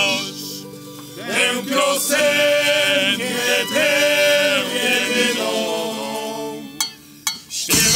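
Male vocal group singing a slow refrain in close harmony, the voices almost unaccompanied, with a couple of brief pauses between phrases. Right at the end, drum, guitar and mandolin come in loudly with the voices.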